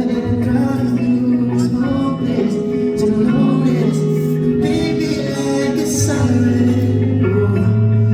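Live amplified music with guitar and a voice singing.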